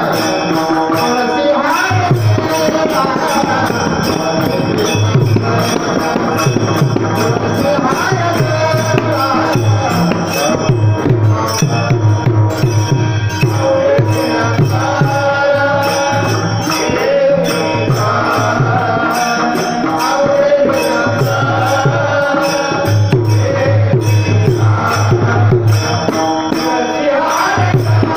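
Marathi devotional panchapadi sung by a voice over a steady beat of hand drum and jingling percussion.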